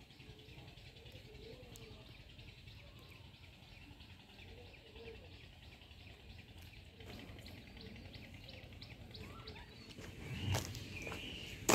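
Faint outdoor ambience of bird chirps and insect calls, with a run of quick, even high ticks in the middle. Near the end a few louder footsteps on the ground.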